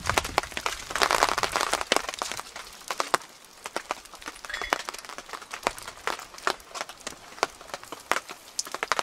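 Wood campfire crackling, with irregular sharp pops all through. Louder close rustling of a jacket and footsteps sound over it for the first second or so.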